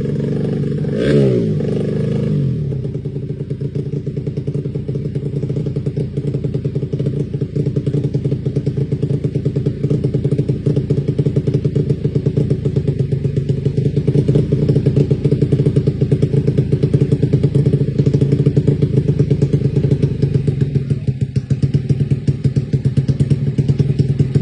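Carbureted Honda Beat scooter's freshly rebuilt single-cylinder four-stroke engine, given one quick rev blip about a second in, then idling steadily with an even pulse.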